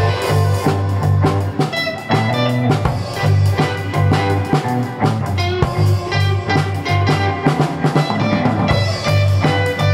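Rock band music: electric guitar over a steady bass line and drum kit beat.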